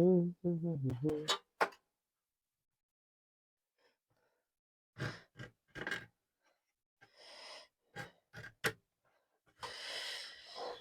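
Grunting voice at first, then a few short scrapes and three sharp clicks from prying at a hot-glued speaker part with a blade, ending in a long breathy exhale.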